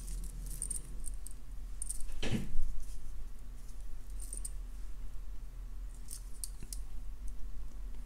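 Small metal jewelry findings, a jump ring, a toggle clasp and the silver wire-link beaded strands, clicking and clinking lightly as they are picked up and handled. One duller, stronger knock comes about two seconds in.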